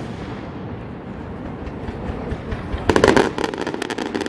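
Fireworks display: the low rumble of an earlier burst fades, then about three seconds in a loud bang sets off a rapid run of crackles.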